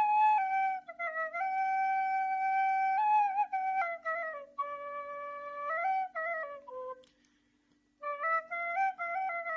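A nay, an end-blown reed flute, playing a slow solo melody of long held notes joined by quick ornamented turns. It breaks off for about a second some seven seconds in, then picks up again.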